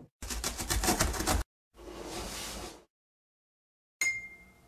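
Cartoon sound effects of an animated intro: a rapid clattering rattle lasting about a second, a short whoosh, then after a pause a brief bright ping that fades away.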